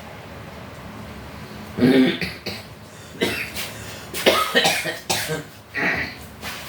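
A person coughing repeatedly, a fit of about six short coughs spread over four seconds, starting about two seconds in.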